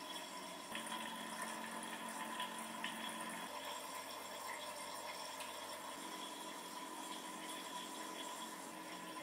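Water from an aquarium filter running and trickling steadily, under a faint steady hum from its pump.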